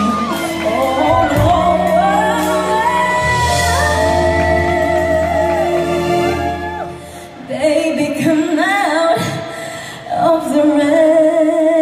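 A female singer performs a ballad live with a band, singing vocal runs and long held notes in a large room. The band's low end drops out about seven seconds in. The voice carries on nearly alone and ends on a long held note.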